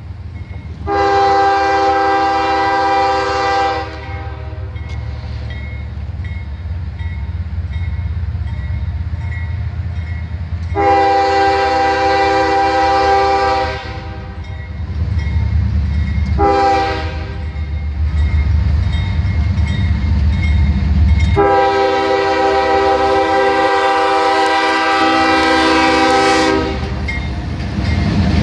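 CSX freight train's diesel locomotive air horn sounding the grade-crossing signal, long, long, short, long, over the low rumble of the locomotives' engines as the train approaches slowly and passes close by near the end.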